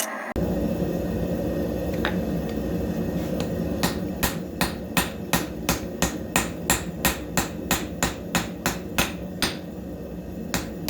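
Hammer blows on a hot damascus steel billet being forged on the anvil, a regular run of strikes about three a second starting about four seconds in, over a steady low rumble.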